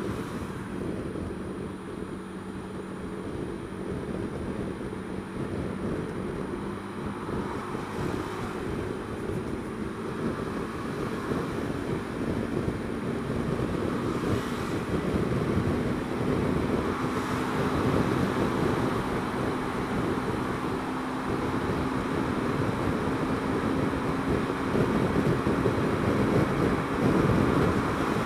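Honda Dio scooter engine running while riding, mixed with wind noise on the microphone and road noise. The engine note steps up a little about halfway through, and the sound grows louder toward the end.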